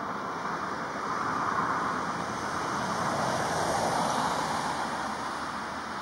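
Steady rushing background noise, swelling a little through the middle and easing off near the end, with no clear bird calls.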